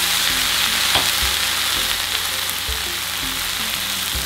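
Water sizzling hard in a hot cast iron pan, deglazing the bits stuck to the bottom, with a spatula stirring through it. The hiss is loud and steady.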